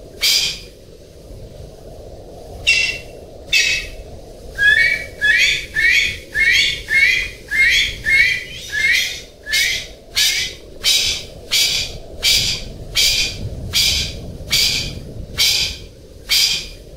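Male golden pheasant calling: a long series of short, harsh, rasping calls, at first spaced about a second apart, then from about four seconds in coming faster, about two a second with a rising note in each, and slowing a little towards the end. A steady low hiss runs underneath.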